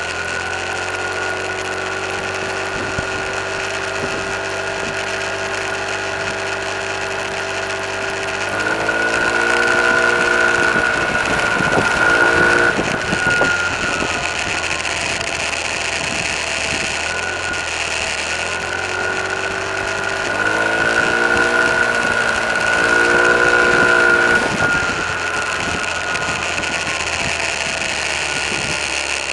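Car engine heard from inside the cabin while driving, running steadily, then revving up through the gears twice, about nine seconds in and again about twenty seconds in. A steady high whine runs under it.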